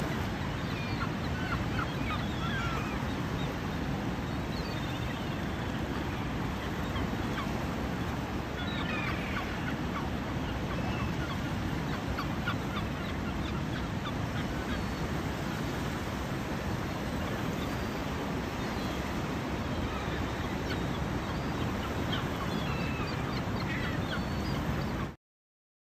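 A flock of gulls calling, short cries coming in scattered clusters over steady surf and wind noise. The sound cuts off suddenly near the end.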